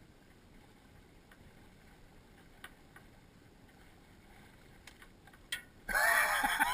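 Faint background with a few scattered clicks, then, near the end, a sudden burst of loud, excited voices.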